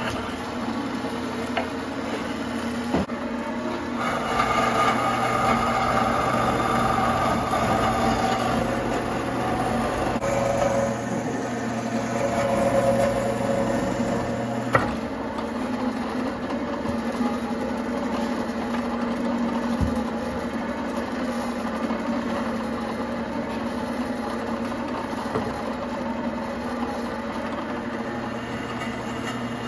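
Vertical bandsaw running steadily while its blade cuts through a hardwood board for an axe handle. The cutting is louder between about 4 and 15 seconds in. There are a couple of short knocks, the sharpest near the middle.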